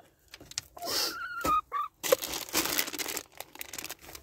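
Crunching and scuffing in snow, most dense in the second half, with scattered clicks and a brief high pitched call about a second in.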